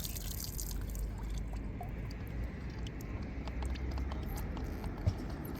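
Small clicks and taps of the RC boat's hull and hatch being handled, with a short hiss of water running off near the start and a single thump about five seconds in. A low wind rumble runs underneath.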